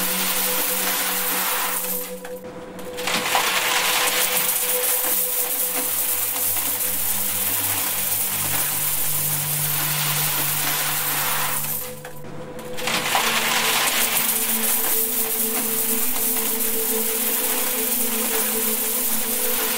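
A stream of coins pouring into a metal box piled with coins: a continuous jingling clatter that breaks off briefly twice, about two seconds in and again about twelve seconds in. Under it run a few steady, low held tones.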